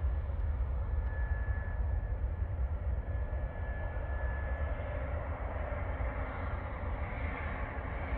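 Airbus A350-900 on final approach, its Rolls-Royce Trent XWB engines making a steady jet rumble with a thin whine for a few seconds; the rushing noise grows stronger near the end as the airliner comes in low overhead.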